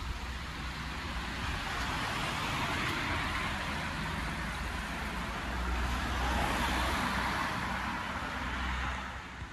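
Street traffic: cars driving past on the road, their tyre and engine noise swelling twice, about two seconds in and again about six seconds in.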